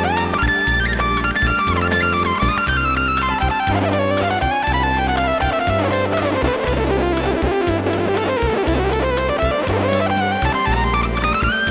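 Electric guitar played through a Roland GR-55 guitar synthesizer, improvising a lead line with long gliding pitch bends. The line slides down through the middle and climbs again near the end, over a backing groove of drum kit and a repeating bass pattern.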